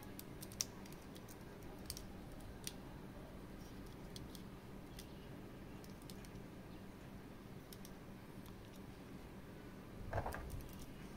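Scattered light clicks and taps of a metal-and-plastic action figure and its parts being handled, with a short louder rubbing sound about ten seconds in, over a faint steady room hum.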